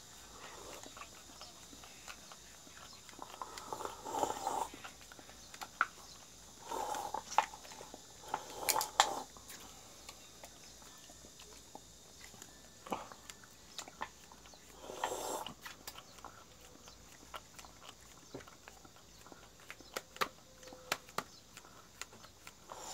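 Jindo dog licking ice cream from a small cup, with irregular wet lapping and smacking clicks and a few short louder bursts of licking.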